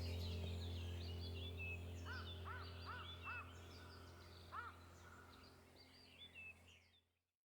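Small birds chirping and calling, with a run of four rising-and-falling calls about two seconds in and one more a couple of seconds later, over a steady low hum. Everything fades out to silence near the end.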